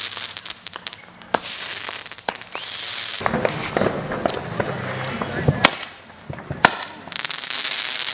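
Consumer fireworks going off: a steady crackling hiss with many sharp pops, three of them standing out a little over a second in, about five and a half seconds in and near the end.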